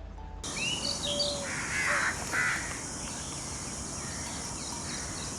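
Recorded bird ambience: small birds chirping over a steady hiss, with two harsh calls about two seconds in.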